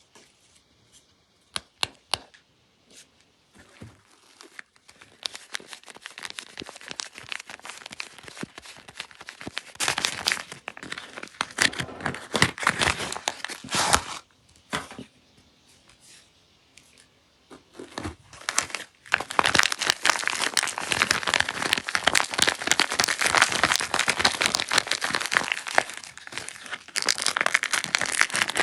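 Soap packaging being unwrapped by hand: wrappers crinkling and tearing. A few light clicks near the start, then spells of crinkling, a pause of a few seconds, and a long continuous stretch of loud crinkling and tearing through the second half.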